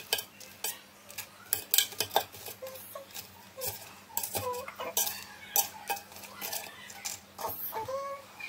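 A metal fork clinking and scraping against the air fryer basket of an Instant Pot Duo Crisp as chicken pieces are moved about in it: a dozen or so irregular sharp clinks with a few short squeaks in between.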